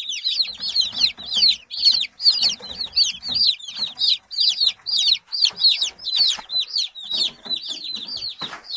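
Cobb 500 broiler chicks peeping nonstop: many overlapping high chirps, each falling in pitch, several a second. A brief scuffing noise near the end.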